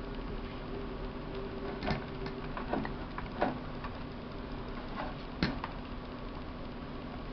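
A few sharp clicks and taps as multimeter test probes are touched to a circuit board and the board is handled, over a low steady hum.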